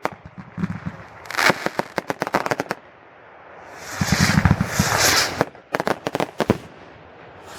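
Fireworks going off: a rapid string of sharp cracks about a second and a half in, then a louder rushing burst with a low thump around the middle, followed by another quick run of cracks.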